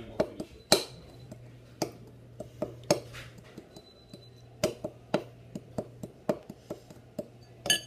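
Spoon knocking and scraping in a mixing bowl of brownie batter during stirring: irregular clicks and taps, with a louder ringing clink near the end.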